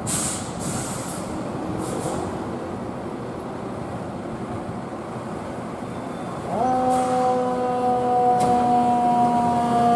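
Fire engine (a 2017 Ferrara Igniter pumper) running as it pulls out, with a few short air hisses, then its siren starts about six and a half seconds in, rising quickly and then slowly falling in pitch.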